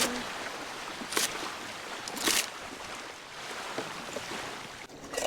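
Steady outdoor rush of wind and water, with three short clicks or knocks: at the start, about a second in, and a little after two seconds.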